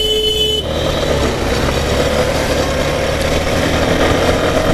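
Motorcycle engine running while riding along a road, with steady engine and road noise. A vehicle horn sounds briefly right at the start.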